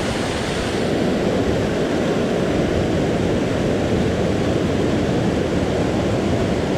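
Small waterfalls and white-water cascades pouring into a rock pool: a steady rushing of water.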